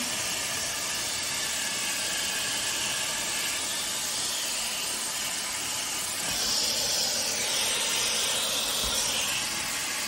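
Shark Airstyler's curling barrel blowing a steady hiss of rushing air while it winds and dries a section of wet hair; it gets a little louder from about six and a half to nine seconds in.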